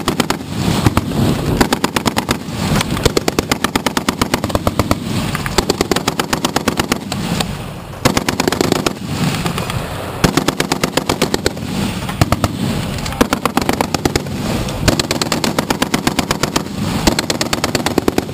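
Browning M2 .50-calibre heavy machine guns firing in rapid bursts, many shots a second, with short pauses between bursts.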